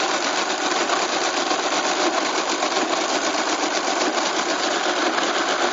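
1956 Friden STW-10 electric mechanical calculator running a long multiplication: a rapid, even clatter of its motor-driven mechanism as it keeps adding, column by column, by repeated addition.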